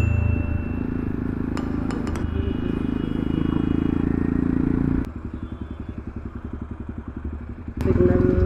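Jawa motorcycle engine running while under way, with road and wind noise. About five seconds in the sound drops to a quieter, evenly pulsing putter as the bike slows into stopped traffic. A brief louder pitched sound comes near the end.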